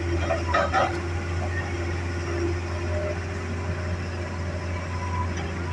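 Hitachi excavator's diesel engine running steadily with a low drone, with a short clatter about half a second to a second in.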